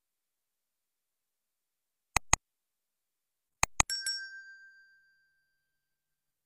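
Subscribe-button sound effect: two quick mouse clicks about two seconds in, two more clicks about a second and a half later, then a bright notification-bell ding that rings out over about a second.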